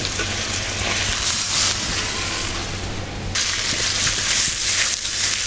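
Sliced steak and mushrooms frying in a hot stainless steel wok over a gas flame: a steady sizzling hiss. The hiss changes abruptly about three seconds in.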